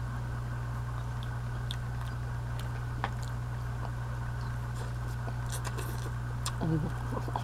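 A person chewing a mouthful of Cajun boudin, a soft pork-and-rice sausage, with a few faint mouth clicks, over a steady low hum.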